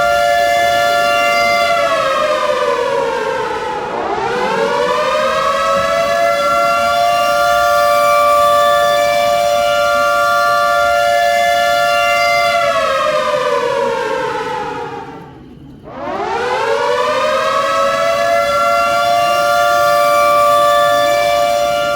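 Warning siren sounding the alarm for an earthquake drill, a steady wail that slides down and back up in pitch about three seconds in. Near the end it winds down again almost to nothing, then winds back up to full pitch.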